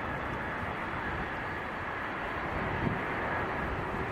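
Jet airliner engines running: a steady rush of noise with a faint high whine held throughout.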